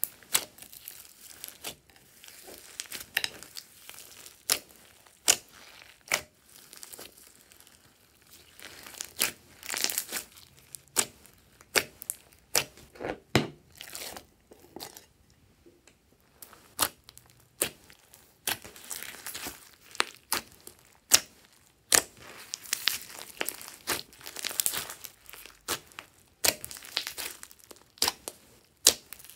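Hands kneading and stretching a large mass of glossy slime mixed with foam beads, giving irregular sharp pops and clicks with crackling, sticky tearing sounds in between.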